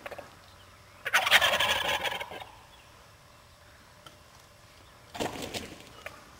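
Wild turkey gobbling once about a second in, a loud rapid rattling call lasting about a second. A shorter, quieter sound follows near the end.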